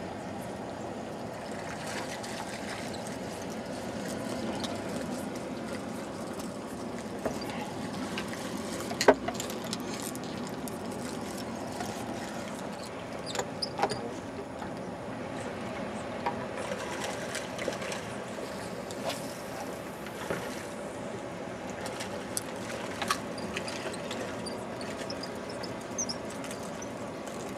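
Steady wash of ocean water, with scattered light clicks and one sharp click about nine seconds in.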